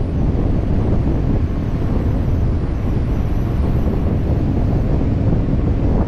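Loud, steady rush of air buffeting the camera microphone during high-speed wingsuit flight, heaviest in the low end.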